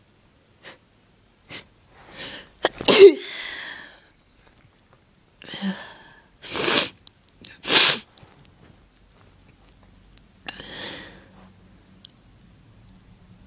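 A person sneezing repeatedly. A couple of quick sniffs lead into a loud voiced sneeze about three seconds in, then two more sharp sneezes in quick succession a few seconds later, and a weaker breathy one near the end.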